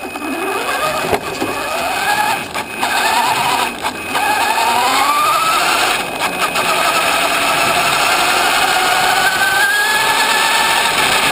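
Radio-controlled car's motor whining as it drives on pavement, heard from on board, over rough tyre and road noise. The whine rises and falls in pitch with speed, then climbs gradually in the second half.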